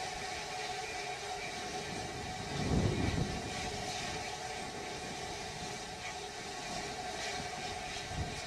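Landed Starship SN15 venting at its base, with a small methane fire burning there after touchdown: a steady rushing noise. A low rumble swells briefly about three seconds in.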